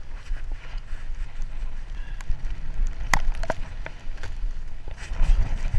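Mountain bike riding fast downhill over a rough, rocky trail: a low rumble of wind buffeting the microphone, with tyre noise and the bike rattling and clicking over the bumps, and a sharp clack about three seconds in.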